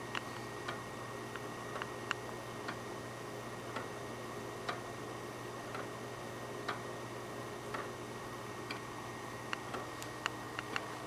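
Ascent pendulum clock ticking, running again on its homemade wooden ratchet parts. Sharp clicks come about once a second, with a few quicker clicks near the end, over a steady low hum.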